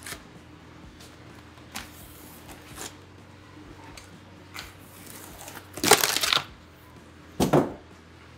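Packing tape being peeled and ripped off a styrofoam shipping box, with light scraping and crinkling. Two loud rips come near the end, the first about half a second long and the second shorter, about a second and a half later.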